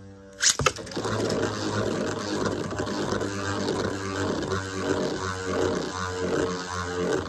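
Metal Fight Beyblade tops launched into a plastic stadium with a sharp clatter about half a second in, then spinning and grinding against each other with a steady whirring hum.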